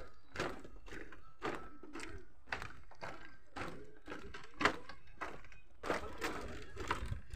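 Footsteps on a bamboo-slat walkway, a steady walking pace of about two steps a second.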